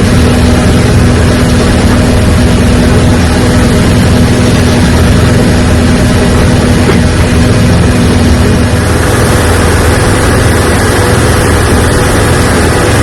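Heavy diesel harvest machinery's engine running steadily with a loud low hum. About nine seconds in, a humming tone in the sound drops out and the sound turns more hissy.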